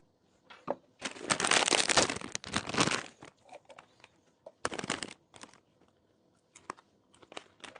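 Crinkling and crackling, about two seconds of it starting a second in, then a shorter burst near the middle and a few scattered light clicks, like food or packaging being handled during drink preparation.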